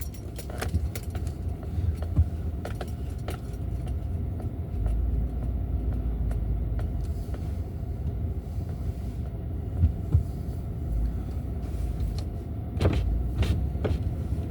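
Car's engine and tyres rumbling low and steadily, heard from inside the cabin while driving slowly, with scattered light clicks and a couple of sharper knocks near the end.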